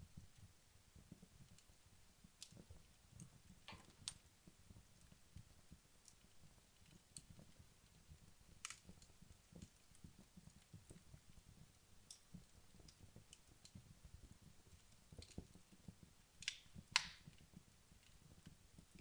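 Wood logs burning down in a fireplace: faint, sparse crackles and pops over a low rumble, with two louder snaps close together near the end.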